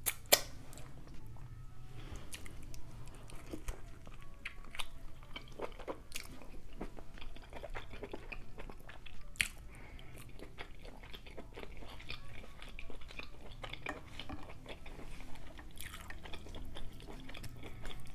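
Close-miked chewing and biting of seafood boil in butter sauce: wet mouth smacks and small clicks at irregular intervals, over a faint low hum.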